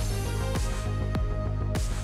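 Electronic background music with a heavy bass and a steady beat, coming in suddenly at the start; each beat drops in pitch and they fall a little more than one every half-second.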